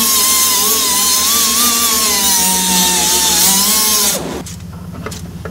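A power tool runs loud and steady, its whine wavering slightly in pitch. About four seconds in it is switched off and spins down.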